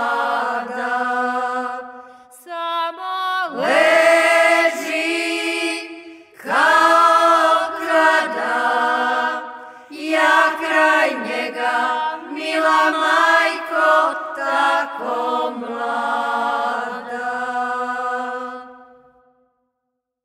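A group of Šokac women singing unaccompanied in the archaic klada style, in several voices with sliding ornaments and long held notes. The phrases are split by short breaths, and the song ends on a long note that fades out near the end.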